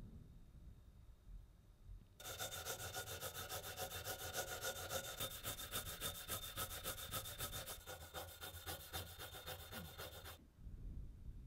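Brass lamp part being rubbed by hand with an abrasive in quick, even back-and-forth strokes, several a second, starting about two seconds in and stopping suddenly near the end.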